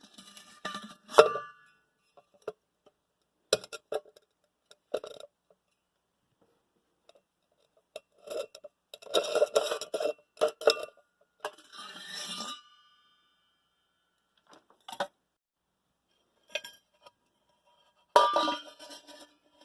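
Irregular metallic clinks and knocks, some leaving a short ringing tone, from hard metal parts being handled or set down. The busiest cluster comes about halfway through, and another sharp knock comes near the end.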